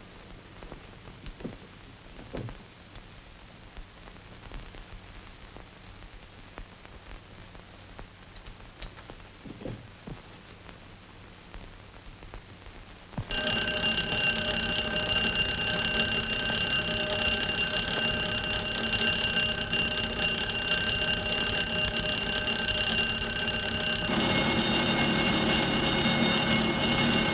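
After a quiet stretch with a few faint knocks, electric burglar alarm bells start ringing suddenly about thirteen seconds in, a loud steady ringing that changes in tone about ten seconds later as a different bell takes over. The bells are set off by the main burglar alarm cable being cut.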